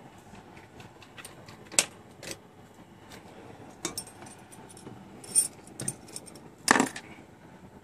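Handling noise: scattered clicks, knocks and light metallic clinks. There is a sharp click about two seconds in, a cluster near the end, and the loudest knock about a second before the end.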